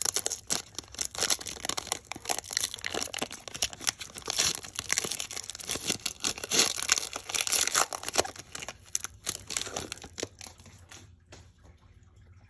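Panini Prizm baseball fat-pack wrapper being torn open and crinkled by hand, a dense crackling that dies away about ten seconds in.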